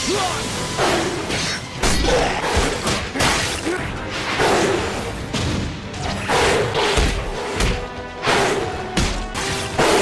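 Dramatic background music over repeated impact sound effects, a run of thuds and crashes about once a second, from an anime fight soundtrack.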